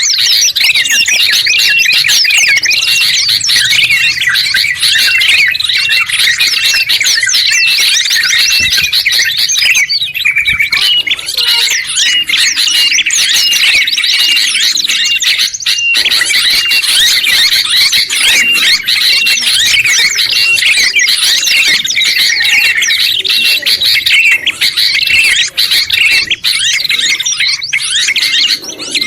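Dense, unbroken mix of several songbirds singing and chattering at once: a combined track of trucuk and kutilang bulbuls, prenjak kepala merah and pleci white-eyes, with a short note repeating over and over beneath the twittering.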